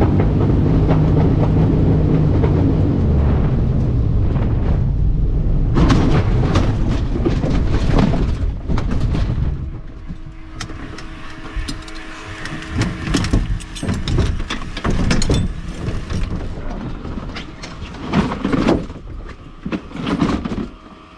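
Light aircraft gliding in without engine power and landing on a rough harvested field: a loud rush of wind and airframe rumble in the cockpit, then touchdown about six seconds in with a burst of rattling and knocks as the wheels roll over the bumpy ground. About ten seconds in it goes much quieter as the plane slows and stops, leaving scattered thumps and clatter.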